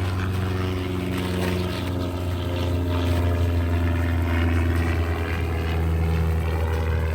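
An engine running steadily: a low, even drone.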